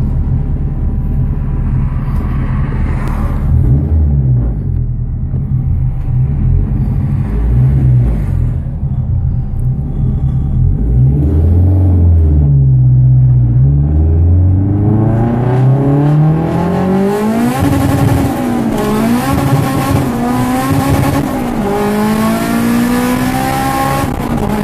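Turbocharged Honda K20A engine with a Garrett GT35R turbo, heard from inside the car, running untuned. The engine note stays fairly low at first, then climbs steadily in pitch from about halfway and rises and falls several times near the end as the car accelerates.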